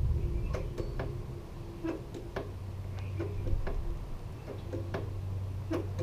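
Light, irregular clicks and ticks from hands-on work at a motorcycle's rear brake caliper while the bleeder valve is open during brake bleeding. A steady low hum comes in about two and a half seconds in.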